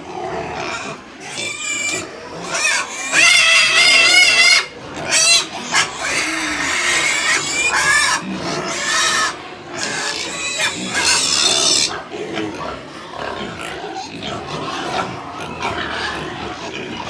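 A pen full of young pigs squealing and grunting. The squeals are high and wavering, loudest and most frequent through the middle, and give way to softer grunting near the end.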